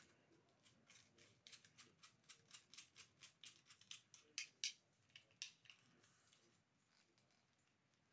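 Faint, quick plastic clicks from handling a spring-loaded phone-holder clamp for a tripod, about four a second, with two louder clicks about four and a half seconds in; they stop about six seconds in.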